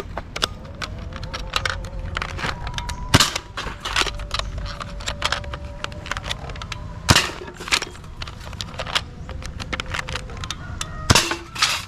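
Toy ball blaster being handled and fired: a continual run of light plastic clicks and rattles, with a handful of sharp snaps a few seconds apart.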